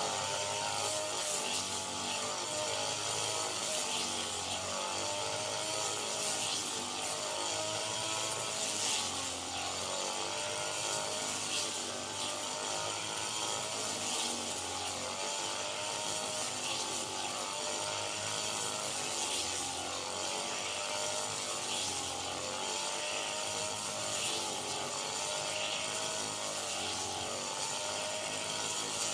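Rice-harvesting machine's engine running, its pitch wavering up and down as the load changes, over a steady mechanical rattle.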